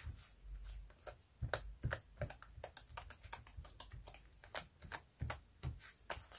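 White slime with foam clay mixed in, kneaded, pressed and stretched by hand, giving an irregular run of sharp clicks, several a second.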